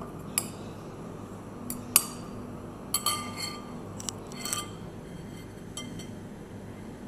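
Metal spoon clinking against a glass mixing bowl as it works mashed tuna: about eight short, sharp clinks at uneven intervals, the loudest about two and three seconds in.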